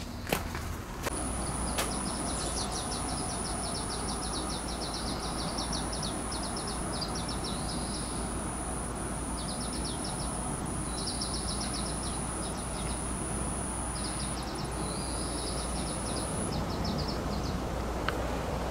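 Summer insects calling outdoors: a thin, steady high-pitched whine that stops about three-quarters of the way through, over repeated phrases of rapid chirping pulses that start and stop, with a low steady hum beneath.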